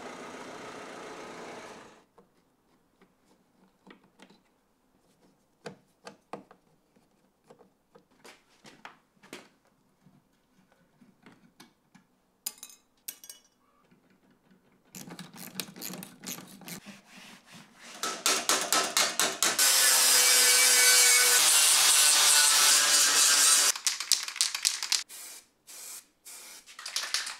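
A Ford Transit Connect's turbo-diesel engine running, then switched off about two seconds in. Then scattered clicks and knocks of hand-tool work on metal parts, a rough scraping stretch, and a long loud spray hiss of an aerosol paint can, with a few short spray bursts near the end.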